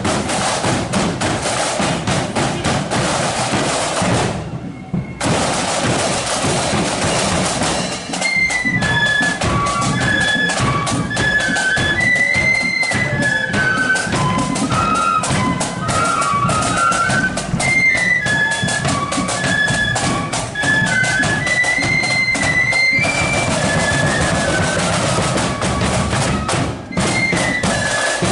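Marching flute band: the drum corps plays a steady beat with a brief break, then the flutes come in with a tune over the drums about eight seconds in. The flutes drop out near the end, leaving the drums alone for a few seconds, then start up again.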